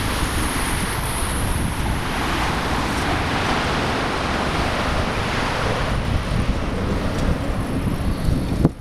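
Steady rush of wind on a microphone mounted on a moving bicycle, mixed with the rolling noise of riding on the path. Near the end the sound drops sharply to a quieter level.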